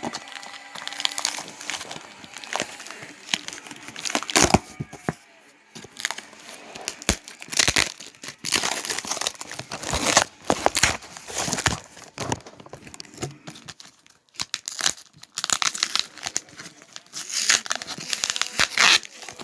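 Packaging being handled, crumpled and torn open during an unboxing, giving irregular crinkling rustles and tearing with several louder bursts.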